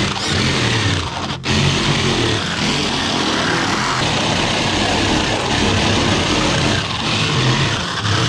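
Jigsaw cutting through MDF board, its blade buzzing steadily, with a brief stop about a second and a half in.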